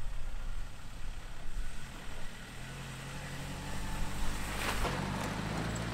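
Ford Ranger pickup's engine running, a steady low hum that comes up about two and a half seconds in, with a single knock late on.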